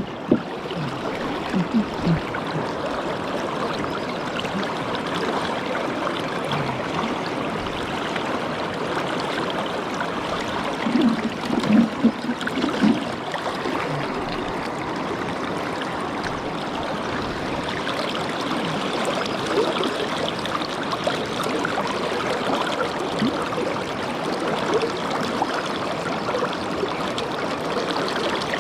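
Swollen river current rushing steadily over stones, with a few short low sounds near the middle.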